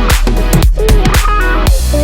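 Background electronic dance music with a steady beat, about two beats a second, over a held bass and a melody.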